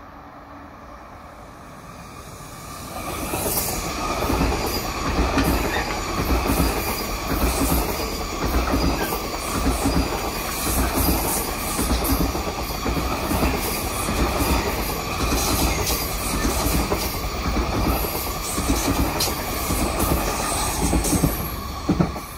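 SBB RABDe 502 FV-Dosto double-deck electric train running through the station: its noise swells about three seconds in into a loud, steady rush with rhythmic wheel clatter about once a second and a faint squeal, ending with a sharp clack near the end as the last car passes.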